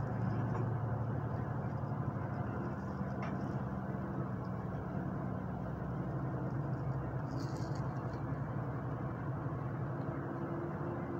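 Moving bus heard from inside the cabin: a steady engine drone with road and tyre noise. A brief high hiss comes about seven and a half seconds in.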